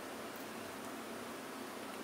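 Steady background hiss with faint soft scraping and light ticks of a fork spreading mashed avocado across toast.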